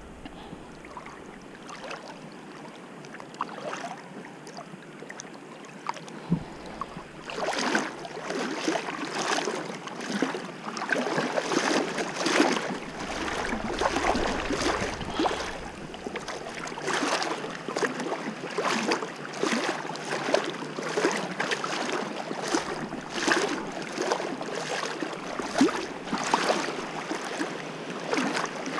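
Shallow seawater sloshing and splashing close by, a soft hiss at first that turns busy and irregular from about seven seconds in.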